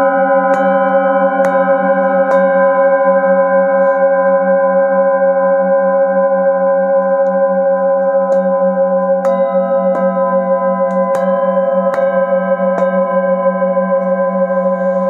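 Brass singing bowls struck with a padded mallet, their overlapping tones ringing on with a slow waver. A few strikes in the first couple of seconds, a long stretch of ringing with no new strikes, then strikes about once a second from about halfway through.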